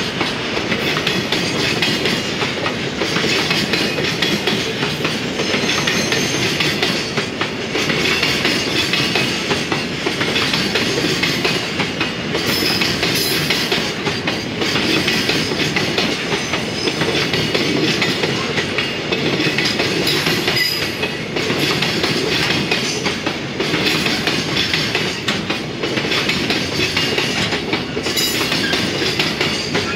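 Koki container flat wagons of a JR Freight train rolling past, a continuous loud rumble with the wheels clacking over the rails.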